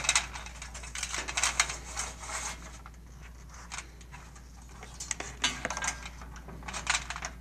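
Solar panel cable being pulled through the metal frame of an infrared barrier tower: light scraping with scattered clicks. It is busiest in the first couple of seconds and again near the end, and quieter in between.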